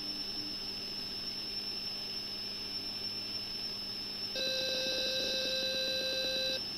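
Atari cassette loading tones played through the TV speaker during a CLOAD. A steady high-pitched leader tone with a low hum under it changes, about four seconds in, to the louder, warbling two-tone data signal of the program block.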